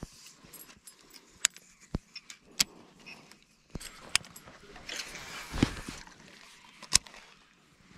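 Sharp clicks and knocks from handling a baitcasting rod and reel. About five seconds in, a spinnerbait is cast, giving a brief rushing sound with a low knock, and the reel clicks again about a second later.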